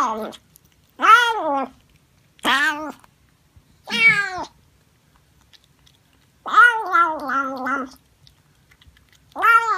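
Siamese cat meowing over and over while eating from its dish. It gives a string of short meows that each rise and fall in pitch, and one longer, wavering meow about two-thirds of the way through.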